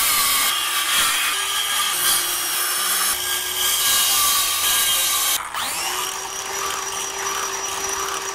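Handheld electric power saw running and cutting into wooden boat boards to notch them out. About five and a half seconds in the motor cuts out, then speeds up again with a quickly rising whine and runs on steadily.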